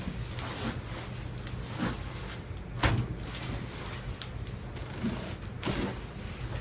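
Sharp pops and knocks from a chiropractic adjustment, a few spaced strikes with the loudest just before the middle, over a steady low hum.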